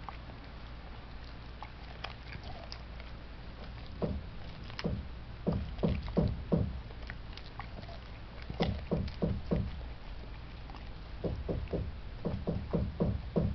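A dog chewing a raw pig's trotter with attached leg, in bouts of rapid crunching bites about four a second, with short pauses between bouts.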